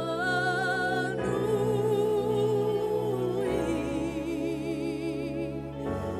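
Slow worship song: a singer holds long notes with wide vibrato, moving to a new pitch every second or two, over sustained chord accompaniment.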